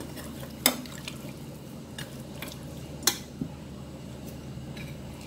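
Metal ladle stirring soup in a stainless steel pot, clinking against the pot a handful of times, the loudest about three seconds in.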